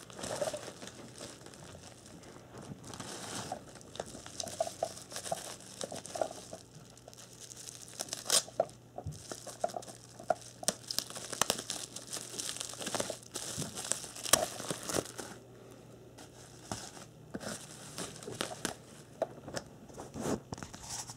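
Plastic bubble wrap crinkling and rustling as it is handled and pulled off a small cardboard box, with irregular crackles and sticky tape being peeled and torn away.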